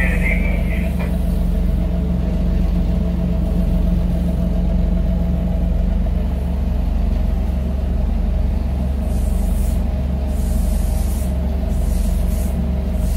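Ship's engine running steadily under way, heard inside the wheelhouse as a constant low drone.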